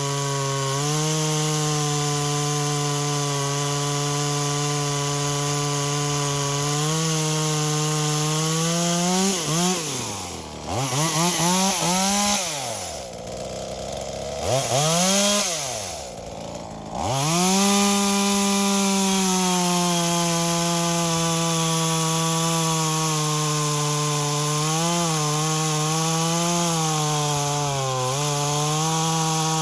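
Two-stroke engine of a V-Modest 2511t (an Echo 2511t clone top-handle chainsaw) running at high revs while cutting wood, its carburettor freshly tuned. Partway through, the pitch drops to idle and climbs back up three times as the throttle is let off and reopened, then it holds steady at cutting speed again.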